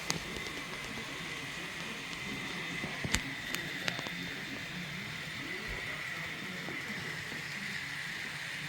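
N-scale model train running on the layout track: a steady high whine over a hiss, with a few sharp clicks about three to four seconds in.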